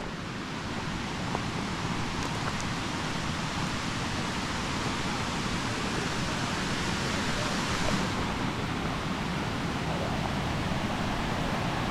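Steady rushing roar of a waterfall.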